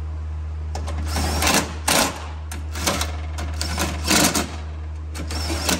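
Ratchet and 10 mm socket tightening bolts in short, irregular spurts of clicking. A steady low hum runs under it.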